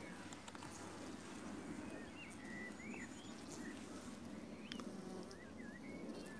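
Honeybees buzzing around an open hive as its comb frames are lifted out: a steady low hum, with a few short chirping bird calls and light clicks over it.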